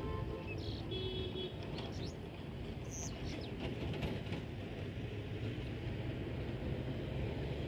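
Outdoor background noise: a steady low rumble, with birds chirping briefly now and then and a few faint ticks.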